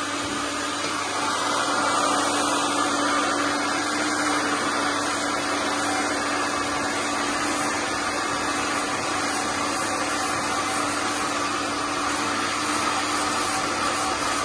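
Handheld hair dryer running steadily while being worked over a woman's hair: a constant rush of air with a steady motor hum.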